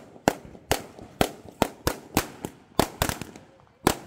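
A long string of firecrackers going off on the ground: sharp bangs at an uneven pace, about three a second, with a brief lull shortly before the end.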